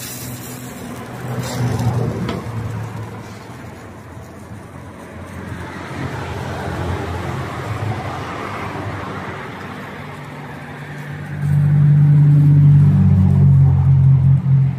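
Street traffic: motor vehicles passing by, with one engine running close and loud over the last few seconds.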